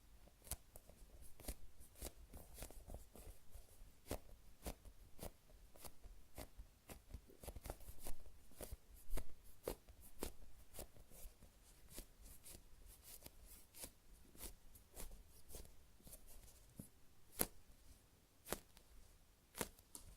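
Hands squeezing and handling a high-rebound foam squishy toy shaped like a roasted sweet potato, giving faint, irregular soft clicks and crackles, about two a second, with a few sharper ones near the end.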